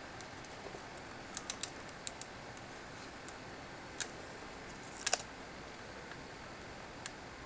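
Scattered small plastic clicks and taps from handling a laptop keyboard and seating its ribbon-cable connectors, with a quick cluster of clicks about five seconds in.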